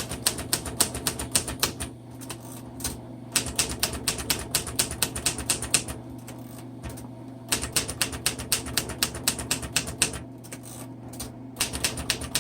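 Typing on a 1952 Royal Quiet DeLuxe manual portable typewriter: quick runs of key and type-bar strikes, about six a second, broken by short pauses three times. A steady low hum lies underneath.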